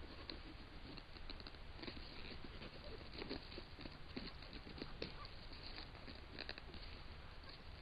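Faint, irregular scratches and clicks of a Florida panther's claws raking a rotten log, the scratching a cougar does to mark its territory. A steady low hiss sits underneath.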